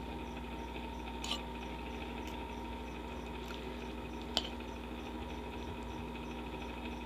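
Electric fan running with a steady hum, while a metal fork clinks twice against the bowl, once about a second in and more sharply past four seconds in.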